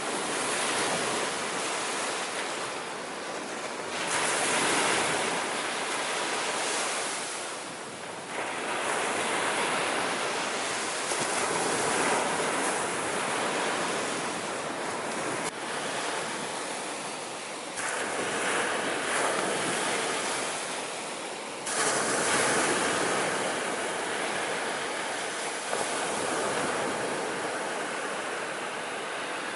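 Sea waves breaking and washing ashore, the surf swelling and easing every few seconds.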